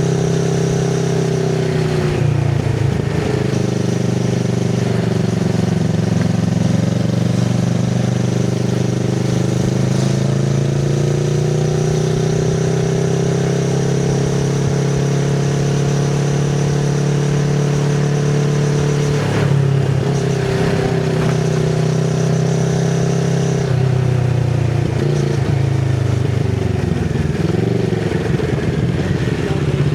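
Kawasaki Z650RS 649 cc parallel-twin engine running through an IXIL MK2 full aftermarket exhaust with its dB killer fitted, ridden on the move. The pitch climbs and falls with the throttle, breaking off at gear changes about two seconds in and again near the end.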